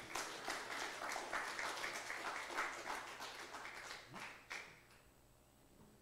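Congregation applauding, a dense patter of many hands clapping that dies away after about four and a half seconds.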